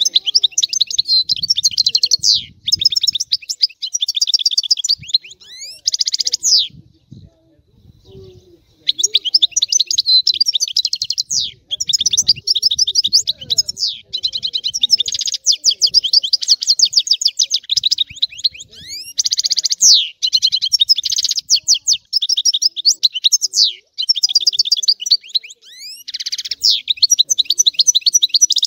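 European goldfinch singing a stragalino-style caller song: long phrases of rapid, high-pitched twittering and trilled notes. There is a pause of about two seconds roughly a quarter of the way in, and then the song runs on almost without a break.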